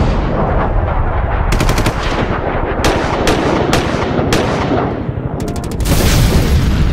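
Machine-gun fire sound effect: quick bursts of shots and a run of single shots a little under half a second apart, over a constant low rumble, building to a dense roar near the end.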